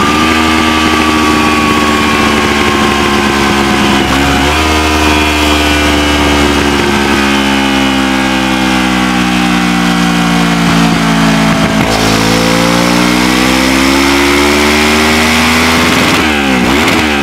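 Kawasaki Versys 650's parallel-twin engine running through an SC Project SC1-R slip-on exhaust. The revs fall slowly for about the first twelve seconds, climb again, then rise and drop quickly a few times near the end.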